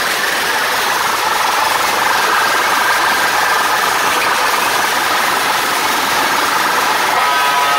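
Truck-mounted DJ speaker rig playing loud, so overloaded in the phone recording that it comes out as a steady rough drone with no clear tune.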